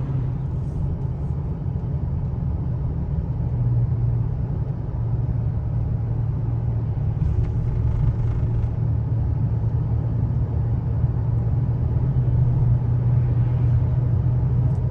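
Steady low rumble of a truck driving on the road, engine and tyre noise heard from inside the cab.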